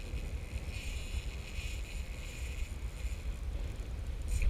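Wind buffeting the microphone, a steady low rumble, over a hiss of choppy water lapping around the boat.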